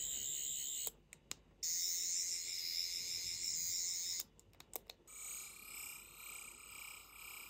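12th Doctor sonic screwdriver replica by Rubbertoe Replicas playing its electronic sonic sound effect, a high warbling whir. It plays in three runs, each broken off by a few sharp button clicks; the last run is quieter.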